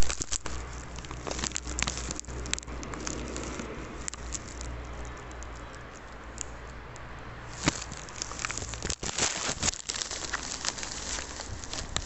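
Irregular crackling and clicking from a handheld phone being moved, with a sharp knock right at the start, over a low steady hum that stops partway through.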